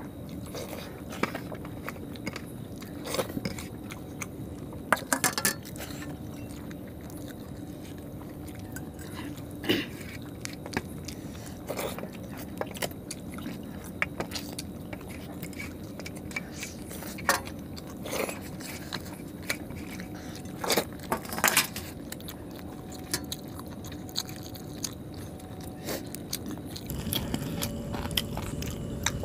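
Close-up eating sounds of people eating rice and chicken curry with their hands from steel plates: chewing, biting into chicken on the bone, and fingers scraping food off the metal plates, giving scattered short clicks and scrapes. A steady faint hum runs underneath.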